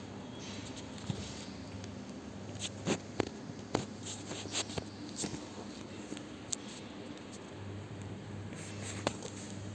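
Scattered light clicks and scrapes of a plastic Beyblade launcher and ripcord being handled, over a low steady hum.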